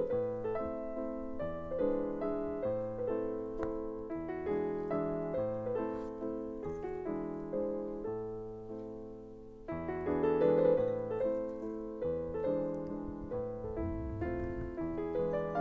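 Background piano music, note after note.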